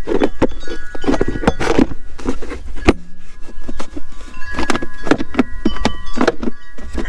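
Plastic air box of a 2005 Suzuki QuadSport LT-Z250 being pushed and worked into place by hand: a steady run of plastic knocks, clicks and scrapes as it is seated into its slots.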